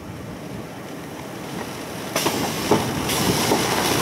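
Steady rushing wind noise of a severe thunderstorm near a tornado, growing louder about halfway through, with a few short knocks.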